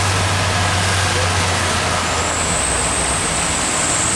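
Heavy diesel truck engine running loud and steady under load as the truck climbs a steep hill, with a thin high whine that comes back about halfway through.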